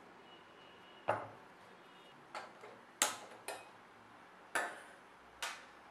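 Six sharp clicks and knocks, irregularly spaced, each dying away with a short ring, as a single-burner gas stove is lit and handled.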